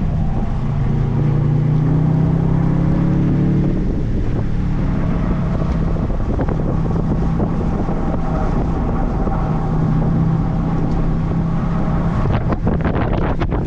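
Audi B7 RS4's 4.2-litre V8 running under load at speed, heavily overlaid by wind noise on the microphone. Its pitch rises as it pulls through a gear in the first few seconds, drops, then holds steadier. A run of sharp knocks comes near the end.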